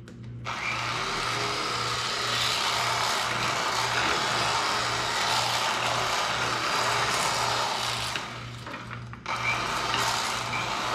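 Electric fillet knife running as its blades slice through a walleye fillet, a steady motor buzz that starts about half a second in, cuts out for about a second after about eight seconds, and starts again.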